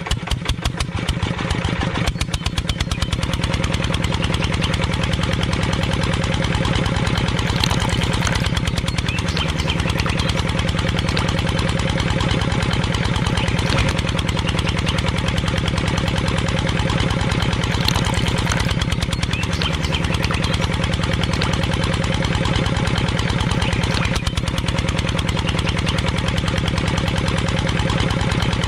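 Small engine running steadily with a fast, even firing beat. It dips briefly in speed and recovers twice, about a third and two-thirds of the way through.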